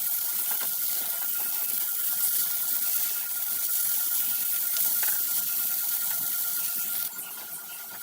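Egg and tomato frying in a pan: a steady sizzling hiss with scattered crackles. It drops to a quieter hiss about seven seconds in.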